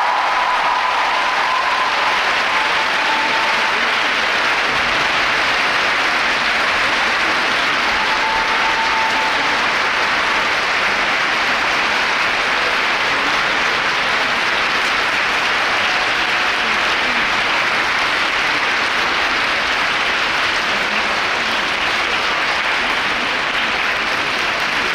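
Ice rink audience applauding steadily at the end of a figure skating program.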